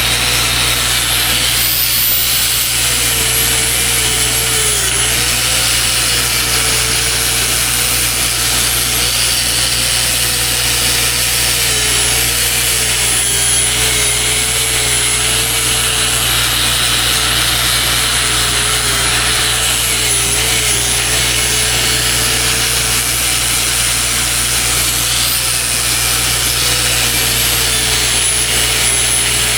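Arc welding a weld bead on the cracked boom of a timber processor, running steadily without a break, with a wavering hum underneath.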